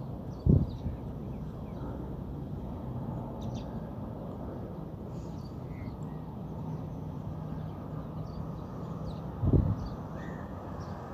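Steady low outdoor background rumble with faint, scattered bird calls. Two dull thumps stand out, one about half a second in and one near the end, from the circulation pump being handled while its terminal cover screw is undone.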